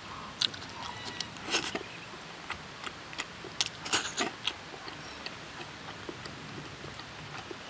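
Close-up eating sounds: a run of sharp clicks and wet smacks of chewing, bunched over the first four and a half seconds, then fewer and fainter.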